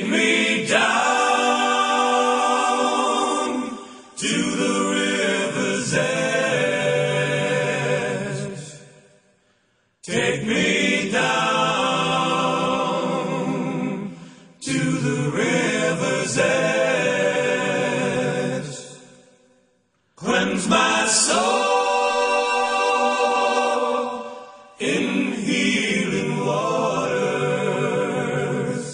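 Background music: a choir sings sustained chords in phrases of a few seconds. Every second phrase fades to a brief silence, about every ten seconds.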